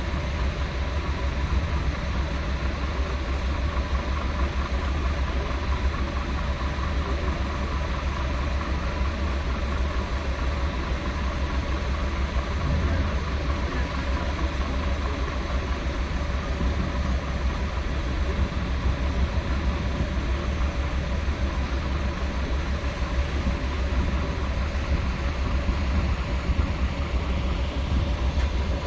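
A Scania fire pumper's diesel engine idling: a steady low drone with a faint steady whine above it.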